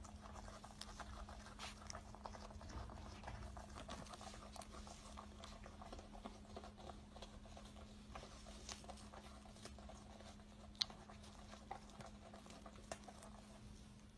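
Faint, irregular crunching clicks of a young wombat chewing grass blades, over a steady low hum, with one sharper click about eleven seconds in.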